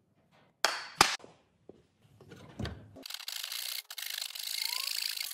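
Two sharp knocks within the first second. From about three seconds in, a brass-backed hand saw rasps steadily through a block of softwood, cutting kerfs across the waste of a half-lap joint.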